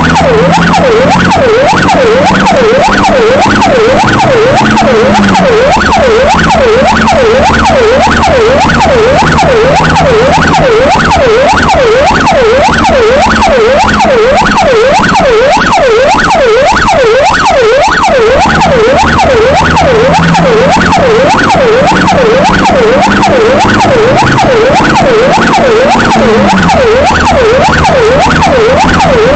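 An emergency vehicle's electronic siren is heard loud from inside its own cab, sounding a fast yelp that sweeps up and down two to three times a second without a break. A low drone runs underneath and drops in pitch twice, a few seconds in and again near the end.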